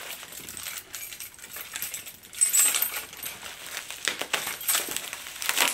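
Clear plastic wrapping crinkling and rustling as it is pulled open by hand, with many irregular sharp crackles that are busiest in the second half.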